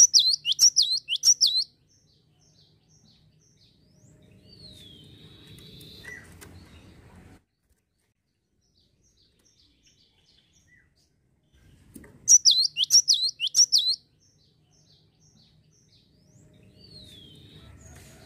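Cinereous tit (gelatik batu) giving a rapid burst of sharp, high, downward-sweeping chirps lasting about a second and a half, followed a few seconds later by a single falling whistle; the same burst and whistle come again about twelve seconds in. A faint low rumble sits under the quieter stretches.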